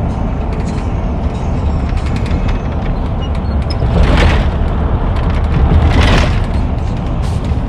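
Road and wind noise of a moving car: a heavy, steady low rumble, with two louder rushes about four and six seconds in.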